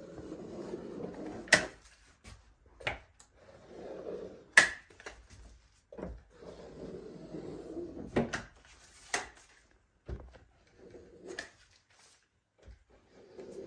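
Dripless caulk gun being worked along a window frame: sharp clicks of the trigger and plunger every second or two, between softer stretches of rubbing as the nozzle is drawn along the joint.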